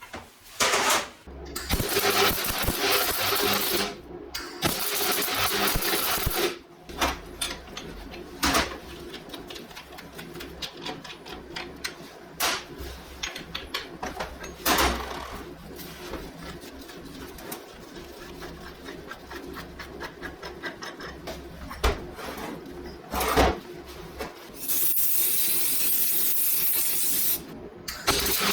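Hand work on metal parts: several stretches of rasping, scraping strokes of a second or two each, with many sharp metal clinks and knocks in between.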